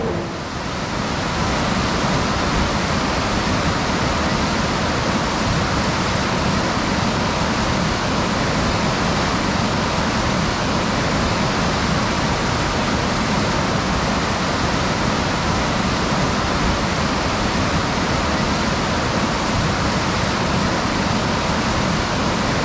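Steady roar of whitewater rushing through a river rapid.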